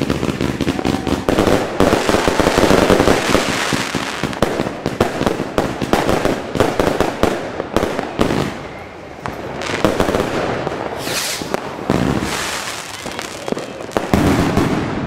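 Funke Cloud Connected firework cake, a battery with nearly 3 kg of net explosive mass, firing a rapid, unbroken barrage of launches, bangs and crackling bursts that thins briefly about nine seconds in.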